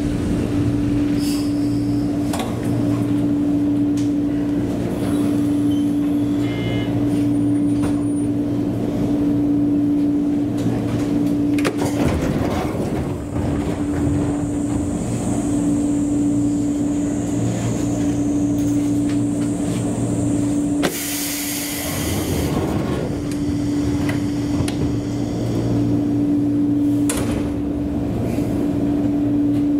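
Ex-Eidan 3000 series electric train standing at a station, its onboard equipment giving a steady hum with one strong constant tone. A high hiss runs through the middle, and a short loud burst of hiss comes about twenty seconds in.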